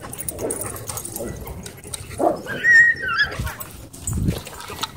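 Dogs playing, with one dog giving a short, high-pitched whine about halfway through, amid lower dog noises. Dull low thumps follow near the end.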